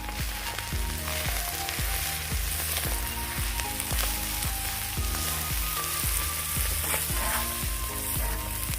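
Kimchi fried rice sizzling on a cast iron griddle over a wood fire, a steady hiss under light background music.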